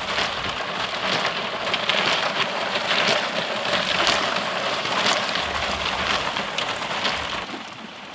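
A pineapple wedge rubbing against the frozen surface of a turning hand-cranked ice cream drum: a steady, crackling rasp that dies away near the end.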